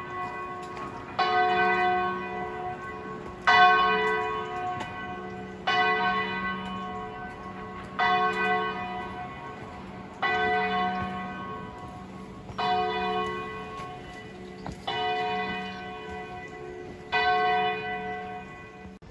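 A single church bell tolling slowly, eight strokes at an even pace of about one every two seconds, each stroke ringing on and fading into the next.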